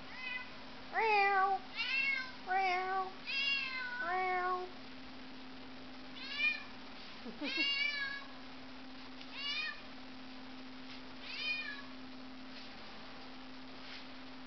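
Domestic cat meowing repeatedly: about five meows in quick succession in the first few seconds, then four more spaced a couple of seconds apart.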